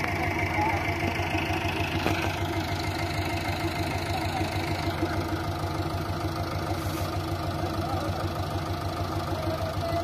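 JCB backhoe loader's diesel engine running steadily with an even low pulse.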